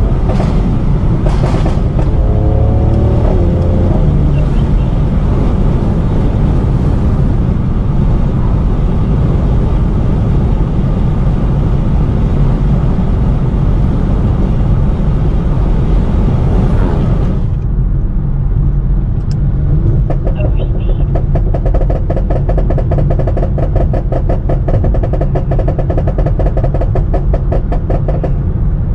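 Tuned Mercedes-AMG C43's twin-turbo V6 engine and aftermarket-tuned exhaust while driving, with the revs rising briefly a couple of seconds in. From about 21 s in comes a fast, even run of exhaust crackles.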